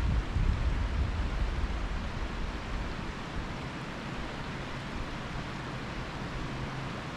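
Wind buffeting the microphone as a low rumble that eases off after the first two or three seconds, over a steady rushing hiss.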